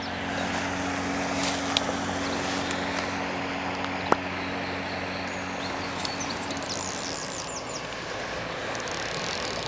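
Steady low drone of a distant engine under outdoor ambient noise, with a few short bird chirps about six seconds in and some faint clicks.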